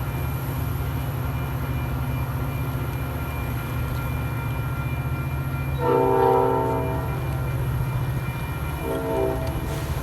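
Metra diesel locomotive running steadily with a low drone, sounding its horn twice: a chord lasting about a second about six seconds in, then a shorter one near the end.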